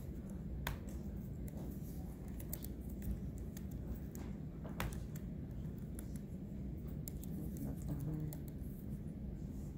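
Steady low room hum with scattered, irregular small clicks and taps.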